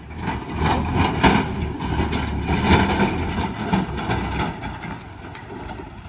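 A motor vehicle's engine running close by, starting up loud right away and easing off over the last second or two.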